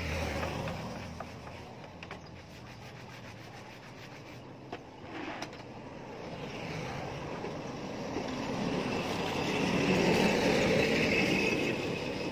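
Hands scrubbing and rubbing at a wet motorbike's front wheel during a wash, with scattered clicks. A rushing noise then builds, peaks about ten seconds in and eases near the end.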